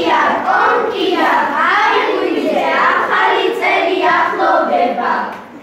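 Children's voices singing together, stopping about five seconds in.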